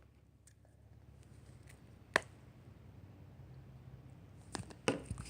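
Handling noises from a Baby Bottle Pop candy toy being worked at by hand: one sharp click about two seconds in and a few light knocks near the end, over a low background hum.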